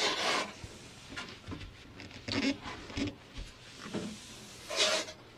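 Scattered brief rustles and light knocks from a gloved hand and sleeve handling a four-carburetor Keihin CVK bank on a tabletop, loudest near the start and again near the end.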